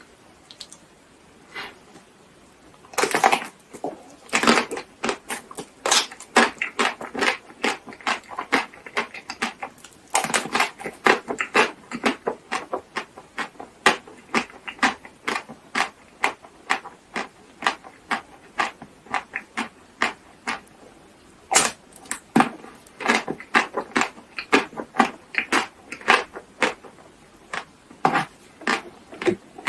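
Close-miked eating sounds: crisp bites and fast, wet chewing with sharp crackling clicks, typical of a chocolate shell breaking and being chewed. They start about three seconds in and come in quick irregular runs.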